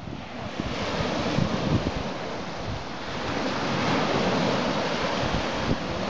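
Sea surf washing onto a beach, a steady wash of waves, with wind buffeting the microphone.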